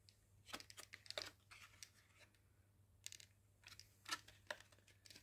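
Stiff clear plastic blister packaging being handled and turned in the hands: faint, scattered clicks and crackles of the plastic, in small clusters about a second apart.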